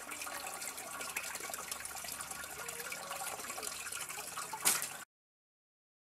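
Spring water running steadily from a spring, with a brief knock a little before the sound cuts to silence.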